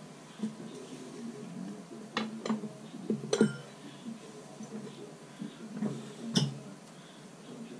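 Four short, sharp clinks of small hard parts being picked up and handled: a pair about two seconds in, a louder one a second later, and another about six and a half seconds in, over a steady low hum.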